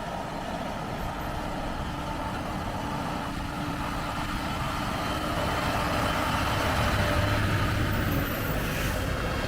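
Heavy truck's diesel engine running under load, gradually growing louder.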